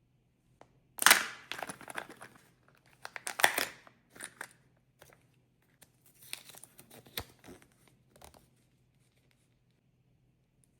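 A thin plastic wrapper being torn open and crinkled by hand, in several bouts of crackling. The loudest tear comes about a second in, and the sound dies away for the last couple of seconds.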